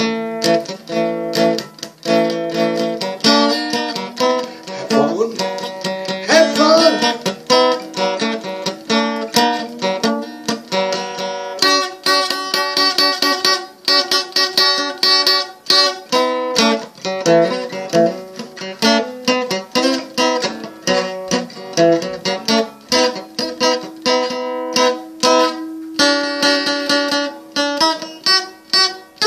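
Acoustic guitar played solo: chords and single notes plucked and strummed in a quick, steady rhythm, with no singing over it.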